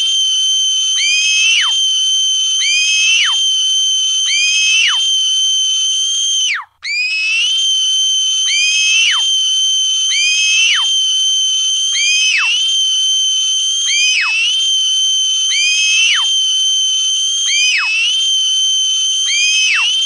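High-pitched screaming sound effect: shrill, sustained screams in overlapping layers, repeating about every second and a half, each rising at the start and falling steeply in pitch at the end. It cuts out for a moment about seven seconds in.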